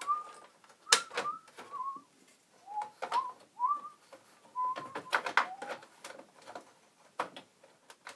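Clicks and knocks of the Commodore A501 RAM expansion board being handled and pushed into the Amiga 500's trapdoor slot. The sharpest click comes about a second in and a cluster follows around five seconds in, with a run of short whistled notes, several rising slightly, over them.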